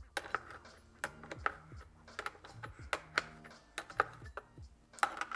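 Irregular sharp metallic clicks and short clinks of a Stihl scrench turning the bar nuts on a Stihl MS250 chainsaw, snugging them only slightly.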